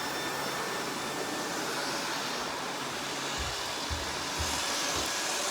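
Several robot vacuum cleaners running at once, a steady whir of motors and brushes, with a few low thuds in the second half as the robots bump into things.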